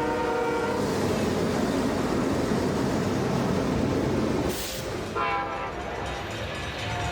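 Model train horn sounding and cutting off about a second in. A steady noisy rumble follows, then a brief sharp burst of noise past the middle and a short second horn toot.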